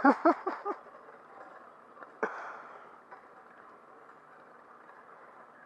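A man's short laugh, then a faint steady background hiss with one sudden brief sound about two seconds in.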